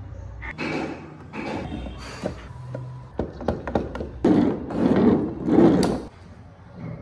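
Wooden model car parts handled on a workbench: the solid-wood body shell and chassis sliding, rubbing and knocking against each other and the table. There is a quick run of small wooden clicks near the middle and louder rubbing and knocks in the second half.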